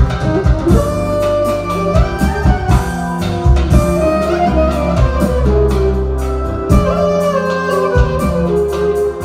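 Live band music played loud through a PA: a clarinet carries a winding melody over hand-struck drum beats, a drum kit and a keyboard bass.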